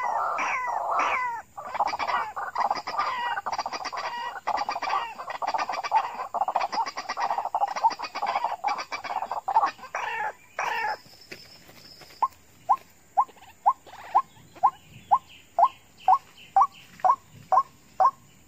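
White-breasted waterhens calling. For the first ten seconds or so there is a loud, dense chorus of raucous croaking calls. Once it stops, a steady series of short, rising "kook" notes follows, about two a second.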